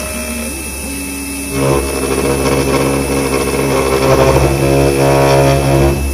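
CNC milling machine cutting a metal conrod blank with an end mill: a steady spindle whine with several held tones, growing louder and rougher from about a second and a half in as the cutter bites into the metal, then dropping back near the end.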